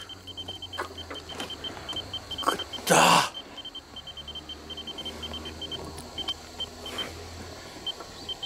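A steady low hum under an uneven string of short, high-pitched peeps at one fixed pitch, with one brief loud rush of noise about three seconds in.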